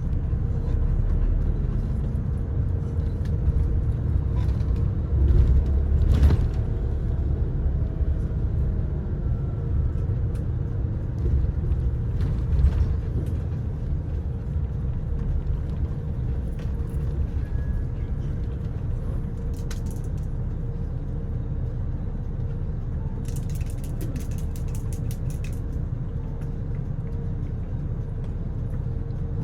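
Low, steady engine and road rumble heard from inside a moving intercity bus, with a constant hum and a few light knocks and rattles from the cabin.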